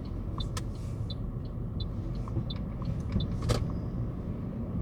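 Car cabin noise while driving: a steady low engine and road rumble, with a turn-signal indicator ticking evenly about every 0.7 seconds and two sharper clicks, one about half a second in and one about three and a half seconds in.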